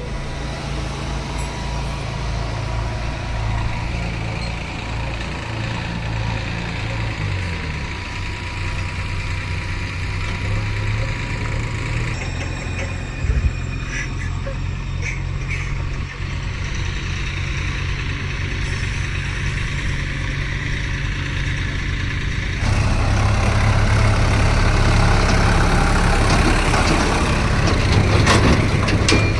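Heavy diesel engines of a backhoe loader and tractors running steadily. There is a single knock about 13 seconds in, and the engine sound gets louder about 23 seconds in.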